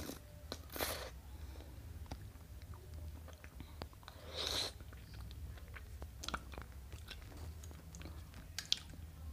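Close-up mouth sounds of eating soft dragon fruit ice cream with fruit chunks: chewing and biting with many small scattered clicks, and two brief louder rushes of noise about a second and four and a half seconds in.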